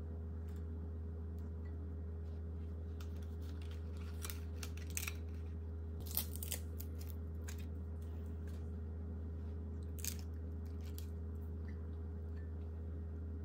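Crisp, thin fried sheets crackling as they are broken and crumpled by hand, in scattered bursts about four to seven seconds in and again around ten seconds in, over a steady low hum.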